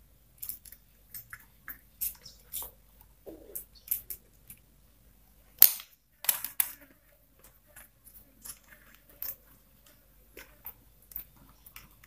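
Scattered small plastic clicks and taps as a push-button switch and its wires are handled and fastened to relay terminals with a screwdriver. One sharp click comes just before halfway.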